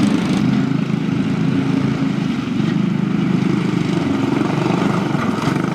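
A cyclekart's small single-cylinder engine running steadily close by, getting suddenly louder at the start and holding a constant buzzing drone.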